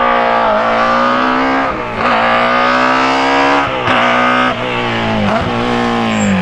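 Rally car engine at full throttle, climbing in pitch through the gears, with short sharp breaks at each upshift, about three in a row.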